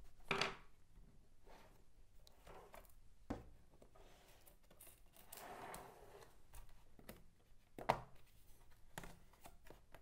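Laptop bottom cover being pried off by hand: a few sharp clicks as its edge clips let go, about half a second in, just past three seconds and near eight seconds, with faint scraping of fingers and panel in between.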